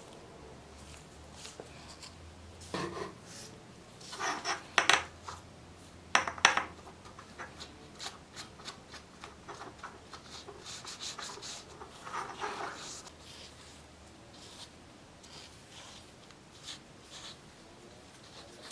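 Irregular scraping and rubbing on a rusty steel scabbard during hand restoration work, with scattered clicks and a few sharper knocks that are loudest about four and six seconds in.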